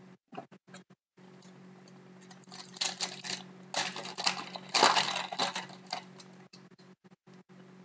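Foil hockey card pack wrapper being torn open and crinkled by hand, a crackly rustle that builds from about two and a half seconds in, is loudest near five seconds and stops about six seconds in. A few light clicks of cards being handled come in the first second.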